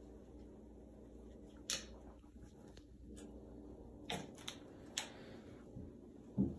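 A handful of short, sharp clicks and light taps, five in all and spaced irregularly, from a small plastic paint bottle and other small objects being handled, over faint room hum.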